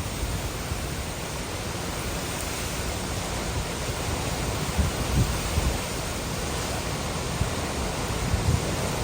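Hurricane-force wind and rain making a steady rushing noise, with gusts buffeting the microphone in uneven low thumps from about halfway through.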